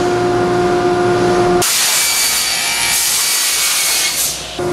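Table saw running with a steady whine, then ripping through a sheet of MDF from about a second and a half in until just after four seconds, the hiss of the cut replacing the whine. The blade spins free again near the end.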